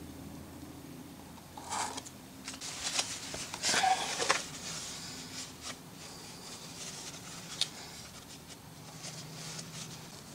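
Hands handling an oil filter during an oil change, then reaching up under the car to fit it: a cluster of sharp clicks and rustles about two to four seconds in, then softer scattered rustles, scrapes and clicks, over a faint steady hum.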